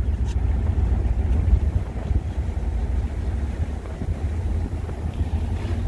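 1957 Ford Thunderbird's V8 engine running as the car drives slowly, a steady deep rumble.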